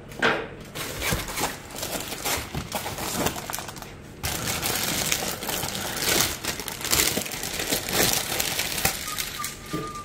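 Thin plastic bag crinkling and rustling as a computer power supply is unwrapped and handled, a dense run of small crackles that grows louder about four seconds in.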